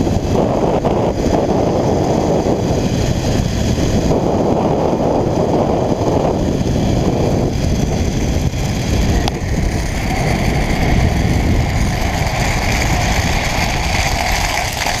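Zipline trolley running fast down the steel cable, with heavy wind on the microphone and a steady whine from the trolley's pulleys. A higher-pitched whine comes in about two-thirds of the way through, and there is a single click about nine seconds in.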